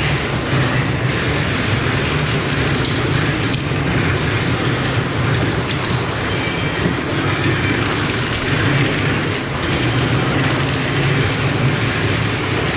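Factory machinery running: a steady, dense mechanical noise with a low hum underneath.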